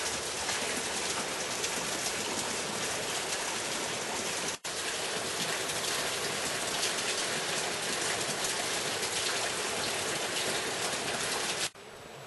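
Steady hiss of rushing water, with a split-second dropout about a third of the way through.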